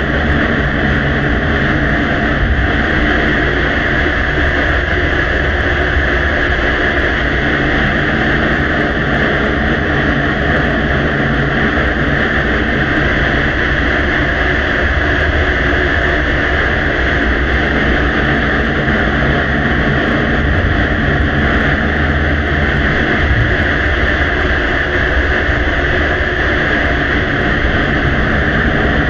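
Heavily amplified recording noise: a steady hiss with a low rumble underneath, unchanging throughout, with no distinct clicks or voices standing out.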